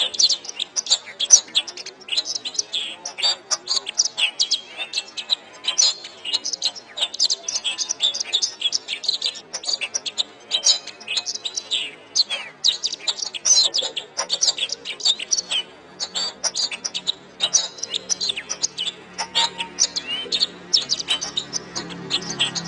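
Domestic canary singing without a break: fast, high chirps, twitters and rolling trills. A faint low hum joins in during the last few seconds.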